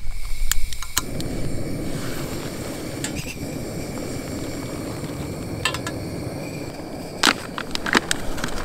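Snow Peak BiPod canister gas stove lit with a sharp click or two, then burning with a steady hiss under the pot from about a second in. A few light metallic clinks near the middle and toward the end.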